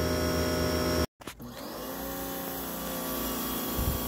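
Electric pressure washer (Sun Joe SPX3000) running steadily with a hum. It breaks off abruptly about a second in, then runs again with the hiss of water spraying from the wand.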